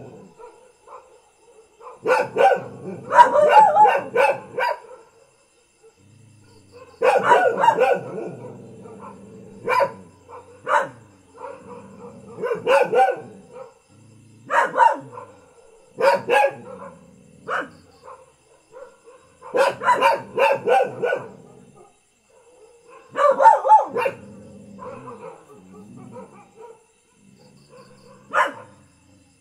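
Mixed-breed village dogs barking in repeated short bouts of several barks each, with pauses of a second or two between bouts; a single bark comes near the end.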